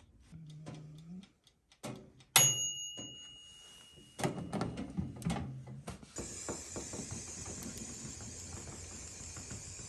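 Workbench sounds of metal saw parts being handled: one sharp metallic clank that rings briefly, then a few seconds of rattling and clinking, then a steady high hiss that starts about six seconds in.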